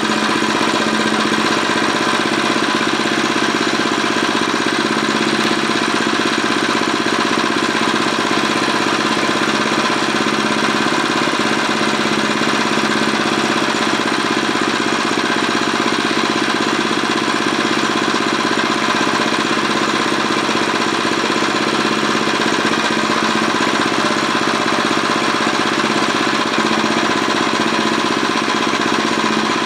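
Small garden tiller engine running steadily at an even speed, back in running order after a no-start from sitting all winter.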